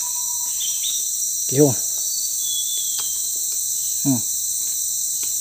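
Steady, high-pitched chorus of forest insects, droning without a break.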